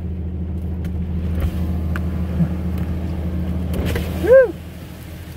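Truck engine running, heard from inside the cab as a steady low hum, with a few light clicks. About four seconds in, a short, loud cry rises and falls in pitch.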